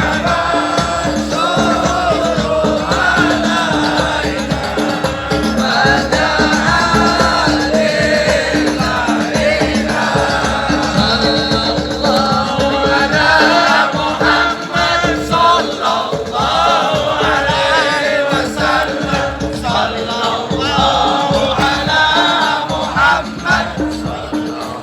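Sholawat, devotional Arabic praise of the Prophet, sung by many voices together with music, without a break.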